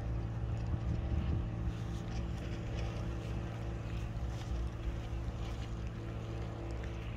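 A steady low motor hum with several fixed tones, with wind buffeting the microphone.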